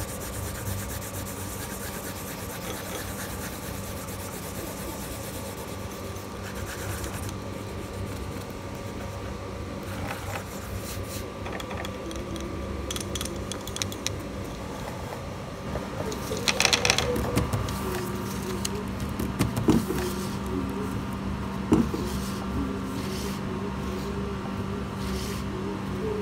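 Coloured pencil rubbing back and forth on paper while shading, a steady scratchy rasp. A few knocks sound in the second half, over a faint steady hum.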